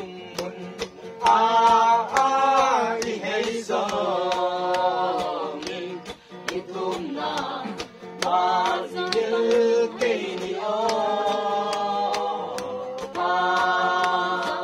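A group of men and women singing a song together in long held phrases, accompanied by a steadily strummed acoustic guitar.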